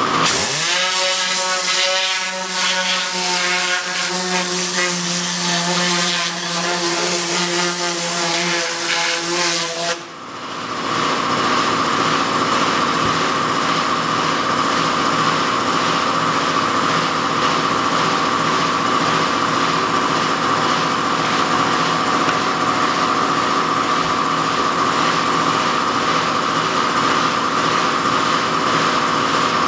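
Tornador compressed-air cleaning gun blowing, a pitched whine over a hiss that rises as it starts. About ten seconds in it breaks off briefly and goes on as a steadier hissing whine.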